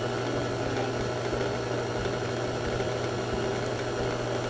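KitchenAid Classic stand mixer running at a constant speed, its flat beater creaming butter, sugar and eggs in the steel bowl: a steady motor hum.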